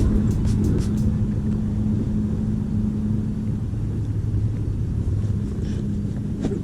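Steady low motor hum over a rumble, with a few faint ticks in the first second.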